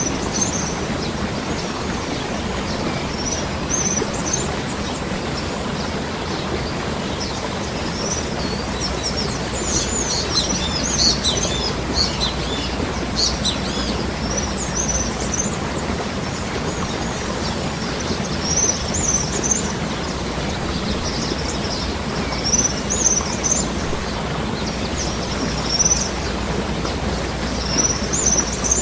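Waterfall rushing steadily, with small birds chirping in scattered high bursts, busiest about a third of the way through.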